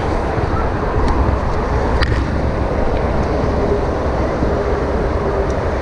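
Steady rumble of nearby road traffic, with a faint light click about two seconds in.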